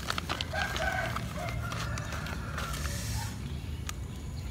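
A rooster crowing once, a drawn-out call of about three seconds, over light clicks and crackles from a snack packet being handled.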